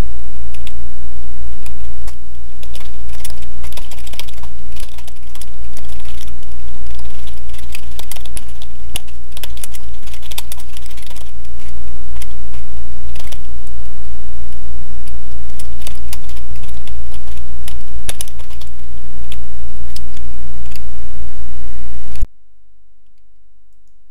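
Computer keyboard typing, irregular key clicks in quick runs, over a loud steady low hum. The hum and clicks drop away suddenly about 22 seconds in.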